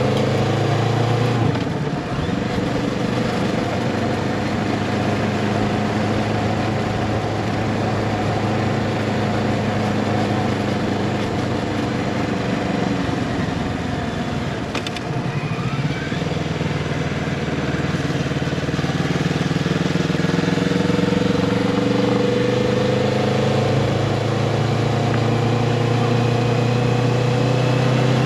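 Motorcycle engine running under way: its pitch drops about one and a half seconds in, then climbs slowly through the second half as the bike gathers speed, over a steady rushing noise.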